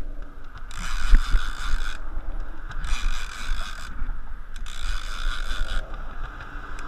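Penn Senator conventional reel being cranked in spurts, its clicker buzzing three times for a little over a second each, about two seconds apart, as line is gained on a hooked goliath grouper. Wind rumble on the microphone underneath.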